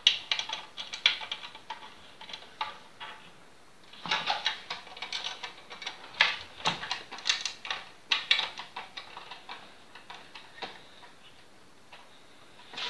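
Handling noise from a CMT7E plunge router and its metal base and guide fittings: irregular clicks, taps and light rattles as the parts are turned over and adjusted by hand, in clusters with short pauses between.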